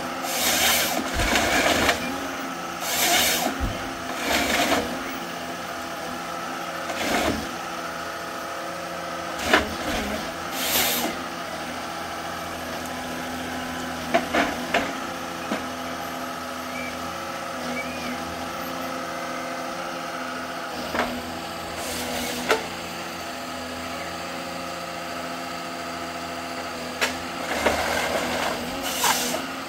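Rottne H11E forest harvester's engine running steadily while its crane and harvester head process a log, with repeated short noisy bursts of about a second each and a few sharp knocks from the head and wood.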